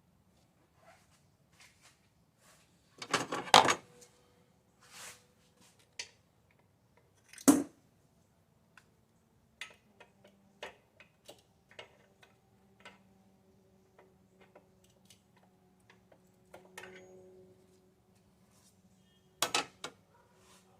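Metal hand tools and parts clinking and clattering during spark plug and coil pack work: scattered light clicks and knocks, with louder clatters about three seconds in, a sharp knock around the middle, and another clatter near the end.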